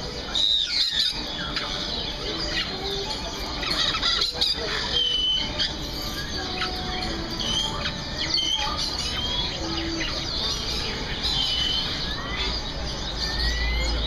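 Many caged songbirds chirping and whistling together, short calls overlapping, some of them rising in pitch.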